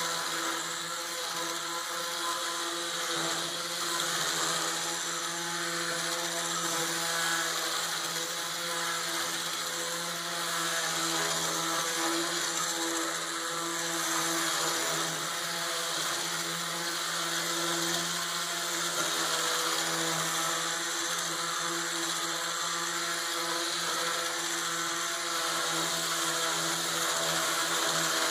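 Ryobi One+ P400 18-volt cordless corner sander running steadily, its vibrating (not rotating) pad working 100-grit sandpaper along a wooden board: a steady motor hum under a continuous hiss of abrasive on wood.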